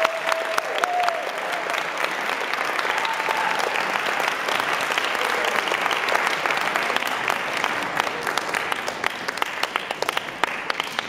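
Audience applauding after a show choir's performance, a dense patter of clapping that thins out and fades near the end.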